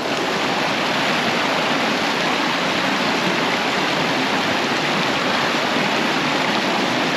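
Creek water rushing over rocks at a creek crossing: a loud, steady rush with no break.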